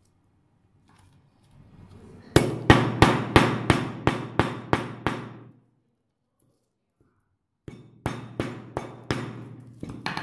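A hammer chipping at a block of ice: two runs of quick, sharp blows, about three a second, with a pause of around two seconds between them.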